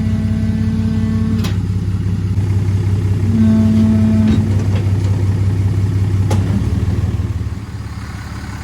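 Motor vehicle running with a steady low hum, with two sharp clicks and a couple of brief tones over it, easing off slightly near the end.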